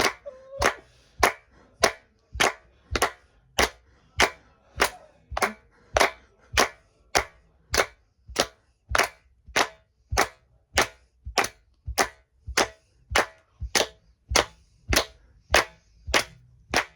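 Sharp percussive clicks keeping a steady, even beat of a bit under two a second, about 100 to the minute, like a click track or someone keeping time.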